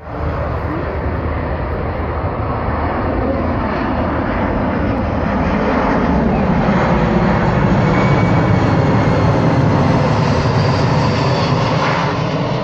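Boeing C-17 Globemaster III's four turbofan engines on a low, slow flypast: a steady, deep jet rumble that builds as the aircraft comes overhead, loudest about eight to ten seconds in, then eases slightly.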